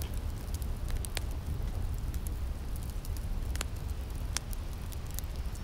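Low steady rumble with sparse sharp crackles and clicks scattered through it, an ambient outro texture rather than a tune.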